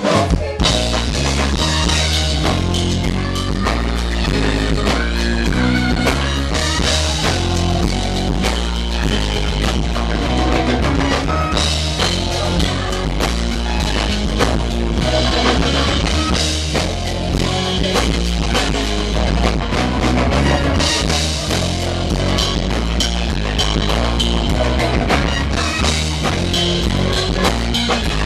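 Rock music played by a band, with a steady drum-kit beat and a strong bass line.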